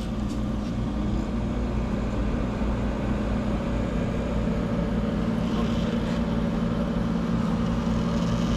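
1983 Gibson SlumberMaster window air conditioner running just after start-up: a steady hum from its compressor and fan over the rush of air, growing slightly louder.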